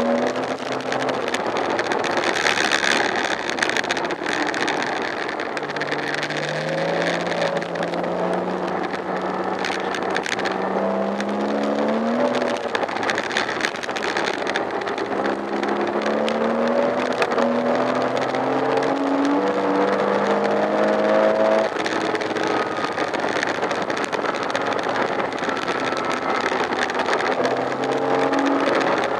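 Porsche Boxster S (987) flat-six engine heard from inside the cabin, pulling at speed. The revs climb in long rising sweeps and fall back between them, over a steady rush of road and wind noise.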